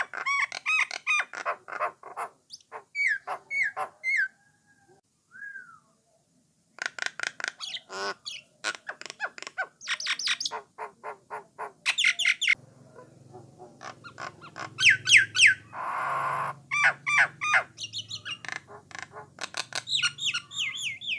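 A myna (jalak nias) singing: fast runs of clear whistles, chattering notes and harsh squawks, with a pause of about two seconds a third of the way through.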